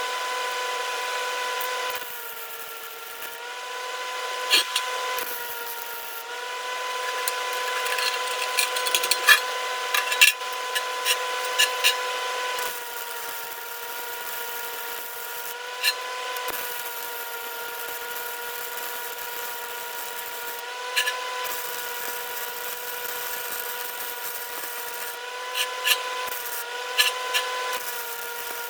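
A handheld electric power tool runs steadily with a motor whine that dips slightly in pitch now and then under load, with scraping noise and scattered clicks over it.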